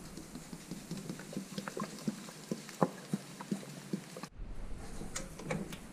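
7-Up soda pouring out of a 2-litre plastic bottle into an empty pot: a quick run of glugs from the bottle over the hiss of the carbonation fizzing.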